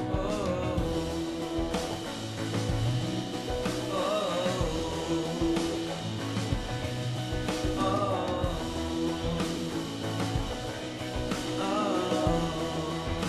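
Rock song with a singing voice over guitar and a steady bass line.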